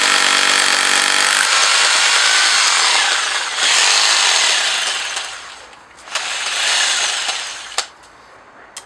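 Parkside PBH 1050 C3 rotary hammer running, a tool with a fault described as a periodic knock. A steady humming run changes about one and a half seconds in to a harsher, noisier sound that dies away about five seconds in. A shorter second run follows and ends with a sharp click near the end.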